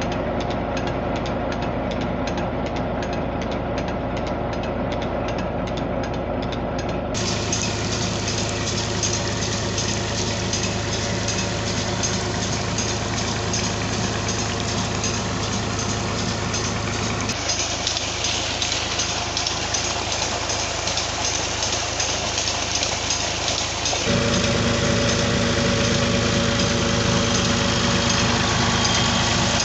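Massey Ferguson 240 tractor's three-cylinder diesel engine running steadily under load, driving a belt-driven tubewell pump. Water rushes from the pump outlet through the middle part, and the sound changes abruptly several times.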